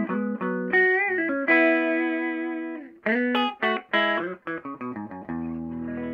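Hollow-body electric guitar played clean through a Univox U-1226 tube amp, on test after repair. Single picked notes with a bent note about a second in and a long held note. Then quick picked notes, and a chord left ringing from about five seconds in.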